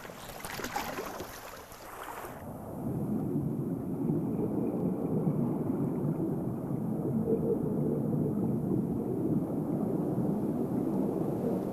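Water noise: a faint hiss of splashing, then from about two seconds in a steady, muffled low rush of churning water.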